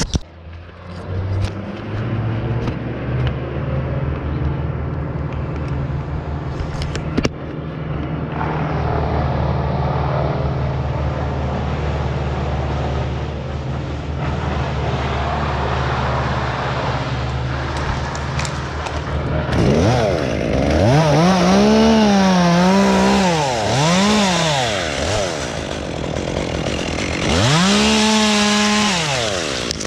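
A gas chainsaw idling steadily, then, about two-thirds of the way through, revved up to full speed and back down three times.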